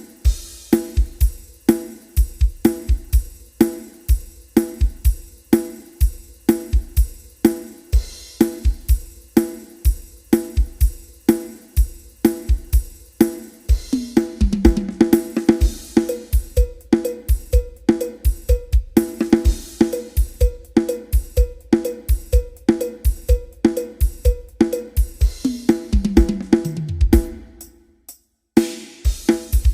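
Drum kit playing a steady rock groove of kick, snare and hi-hat with cymbals. Twice it breaks into a fill that falls in pitch down the toms. Near the end it stops briefly, then comes back in.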